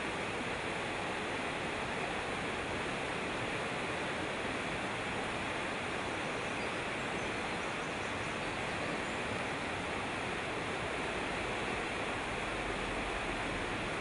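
Mountain stream running over rocks in shallow rapids: a steady, unchanging wash of water.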